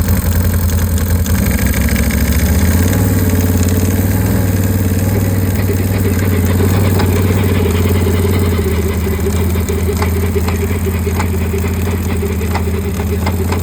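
Can-Am Outlander 1000 XXC ATV's V-twin engine running steadily at a crawl. From about halfway in come repeated short clunks, roughly one or two a second: the clunking that this machine makes only at low speeds of 1–4 mph.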